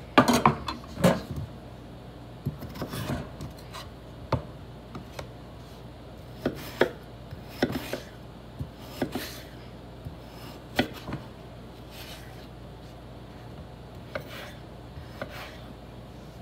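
Kitchen knife cutting a peeled potato on a wooden cutting board: irregular knocks of the blade against the wood, a cluster of the loudest in the first second or so, then single knocks every second or two.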